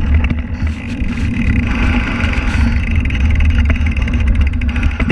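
Wind buffeting the microphone of a camera mounted on a moving mountain bike, a steady low rumble, with the tyres rolling and the bike rattling over a rough dirt trail in quick irregular clicks.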